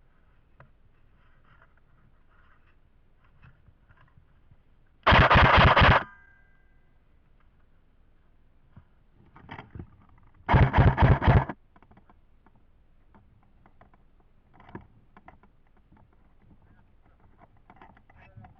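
Airsoft gun firing two bursts of full-auto, each about a second long and about five seconds apart, with faint rustling and small clicks between them.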